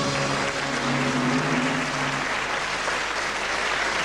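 Studio audience applauding steadily: sustained clapping from a large crowd.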